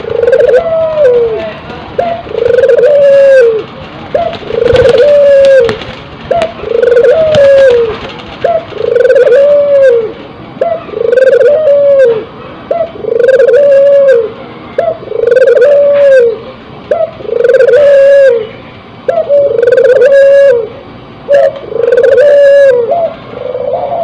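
Puter dove (barbary dove) bow-cooing in steady repetition, about one call every two seconds: each call a short clipped note followed by a long drawn-out coo that drops away at its end. It is the male's courtship coo of a dove in breeding condition.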